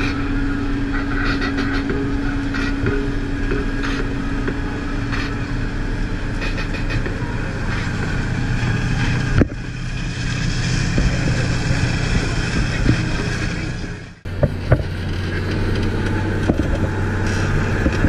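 John Deere 6920S tractor's six-cylinder diesel engine running steadily under load while pulling a Lemken Variopal plough through the soil. The sound changes abruptly twice, about nine and fourteen seconds in, and a couple of sharp knocks come just after the second change.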